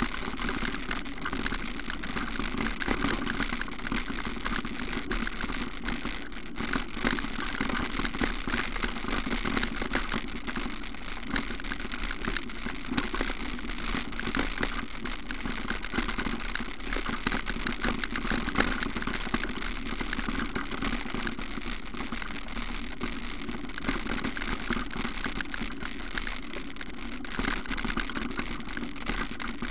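Steady rushing noise with constant small rattles and clicks from a camera carried over a bumpy dirt path, and a steady low hum underneath.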